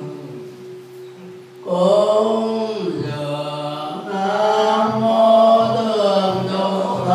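Group of Buddhist monks and nuns chanting a sutra in unison from their books. The voices die down briefly at the start, then the chant comes back in full about a second and a half in and carries on steadily.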